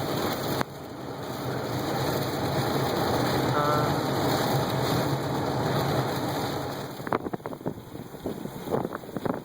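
Strong storm wind rushing over the microphone, swelling for several seconds and then easing into irregular crackling buffets about seven seconds in.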